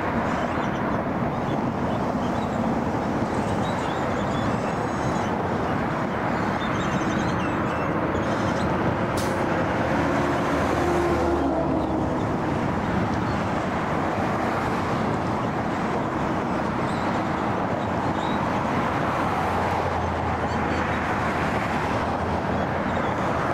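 Steady rumble of an Airbus A330-300's General Electric CF6 jet engines at low thrust as the airliner taxis and turns onto the runway.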